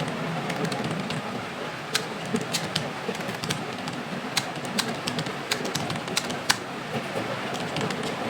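Keys of a computer keyboard being typed: irregular sharp clicks, a few a second, over steady background noise.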